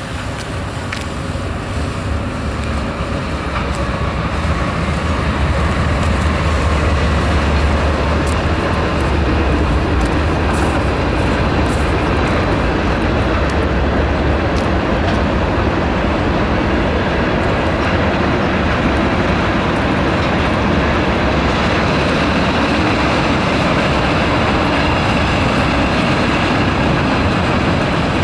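Freight train passing: CSX diesel locomotives, including an ex-Seaboard System EMD GP38-2, go by with a deep engine drone that grows over the first few seconds and is strongest in the first half. The drone gives way to the steady rolling rumble of covered hoppers and tank cars on the rails.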